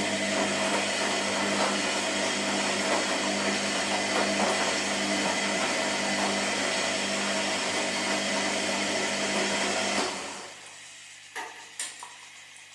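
Washing machine running in a burst of about ten seconds: a steady motor whine over a rushing, churning noise, which stops suddenly. Two short clicks follow.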